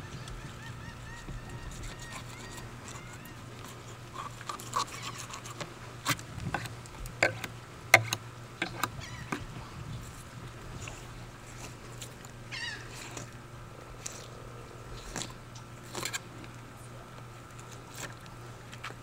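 Fillet knife cutting along a tripletail's backbone, with scattered sharp clicks and scrapes that are loudest a few seconds into the cutting, over a steady faint hum.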